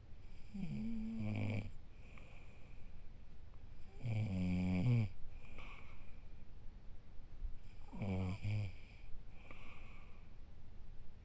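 Snoring: three long snores, one every three to four seconds, with quiet breathing between.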